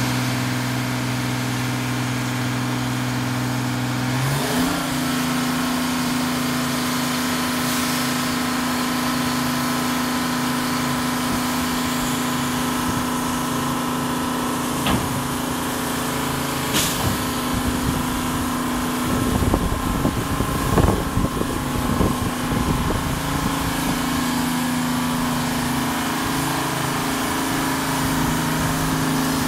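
A Pyke rail crane's engine runs steadily, speeding up to a higher steady pitch about four seconds in. Between about 19 and 23 seconds, a run of irregular knocks sounds over the engine.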